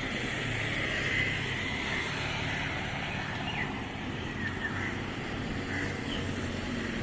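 Steady hum of road traffic, with birds chirping briefly a few times.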